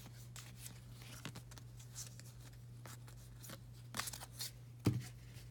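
Baseball trading cards being handled and flipped through one after another: scattered soft ticks and rustles, with a sharper tap near the end, over a steady low hum.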